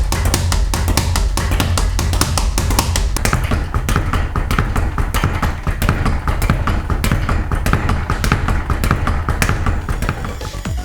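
Speed bag being punched against a platform drum lined with a felt strip to deaden the hits, a fast, even rattle of rebounds. Music with a steady bass plays underneath.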